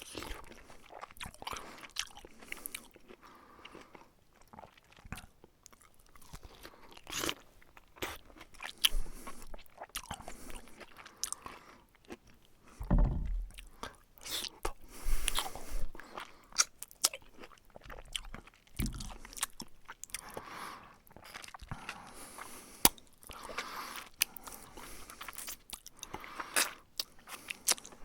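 A person eating close to the microphone: wet chewing, biting, crunching and slurping, in irregular bursts with a louder low swell about halfway through.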